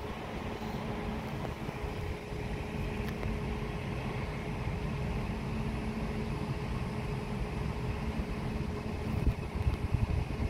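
Container goods train running on the line at a distance: a steady low rumble with a faint even hum, and irregular heavier low thumps building near the end.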